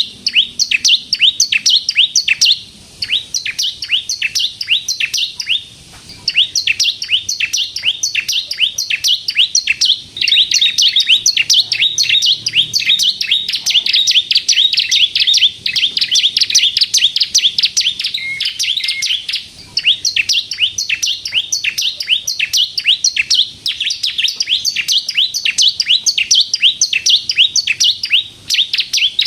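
Bar-winged prinia (ciblek kristal) singing in fast, continuous runs of sharp, falling chirps, about five a second, with a few short pauses.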